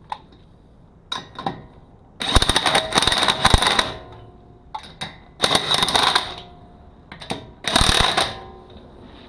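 Cordless DeWalt impact wrench run in short bursts of rapid hammering, each about a second long, with a few light clicks between bursts: lug nuts being run down as the wheel goes back on.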